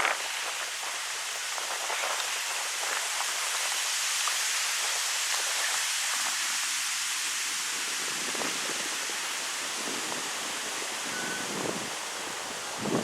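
Wind blowing through birch trees: a steady rushing hiss of leaves and branches, with a few short low gusts buffeting the microphone in the last few seconds.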